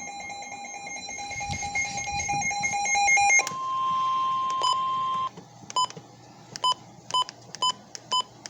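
Weather radio warning alert tones: a steady electronic alarm tone for about three and a half seconds, then a different single steady tone for nearly two seconds, then short beeps about twice a second. They signal an incoming severe thunderstorm warning.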